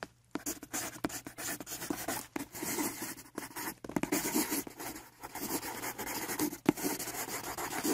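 Marker tip scratching on paper in fast back-and-forth colouring strokes, starting after a brief pause at the very beginning.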